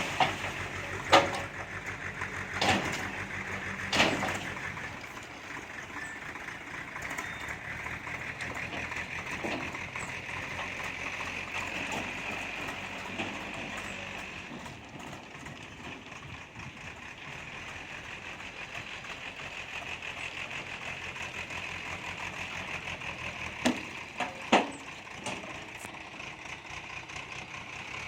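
Diesel engine of heavy construction machinery running steadily, with a high whine that swells in the middle. Several sharp knocks come in the first few seconds and a few more near the end.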